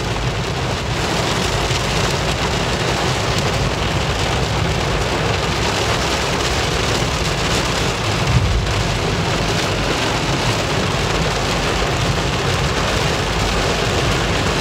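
Heavy rain falling hard on a car's roof and windshield, heard from inside the moving car: a steady dense hiss with low road rumble beneath. A brief low thump about eight seconds in.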